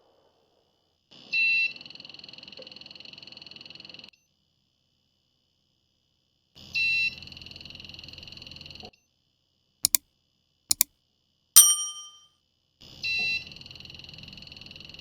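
Electronic alarm buzzer of a homemade laser-beam security alarm going off three times, each burst a few seconds long with a loud start before settling into a steady high buzz: the alarm triggering. Between the second and third bursts come a few sharp clicks, the last with a short ring.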